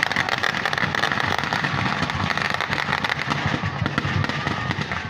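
Dense, continuous rapid crackling and popping, many small cracks overlapping.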